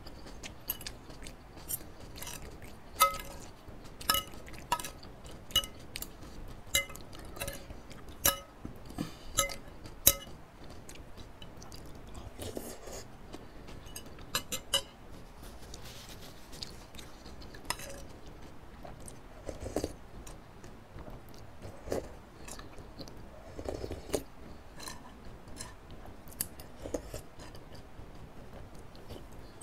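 Close-miked eating: a metal spoon and fork clink against a ceramic soup bowl, each strike ringing briefly, most often in the first ten seconds, along with chewing of noodles.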